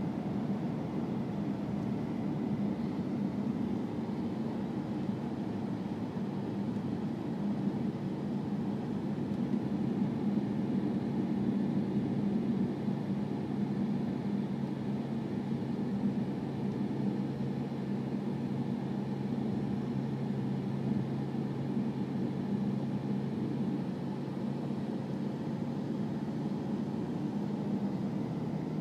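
Jeep Grand Cherokee SRT8's 6.4-litre HEMI V8 pulling under load on a track lap, heard from inside the cabin over steady tyre and wind noise. The engine note runs steadily and swells a little about a third of the way through, through a corner.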